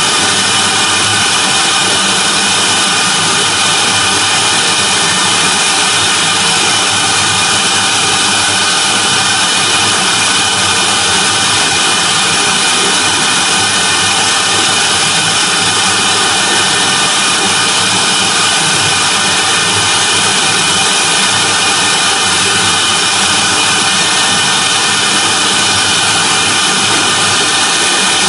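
CNC router spindle running at high speed while its long bit carves a turning Styrofoam (EPS) block on the rotary axis: a steady whine over a hiss, unchanging throughout.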